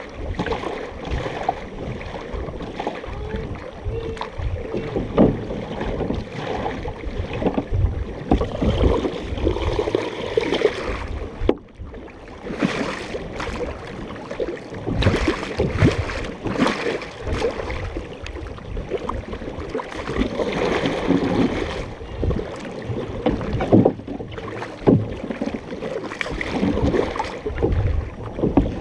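Canoe paddles dipping and pulling through lake water in irregular strokes, with splashes close by and water washing along the hull of a large multi-person canoe.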